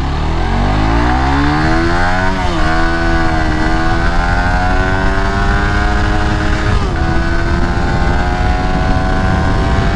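Suzuki GSX-R150 motorcycle's single-cylinder engine at full throttle, accelerating hard from a standstill. Its pitch climbs, drops sharply at a gear change about two and a half seconds in, climbs again, and drops at another shift near seven seconds.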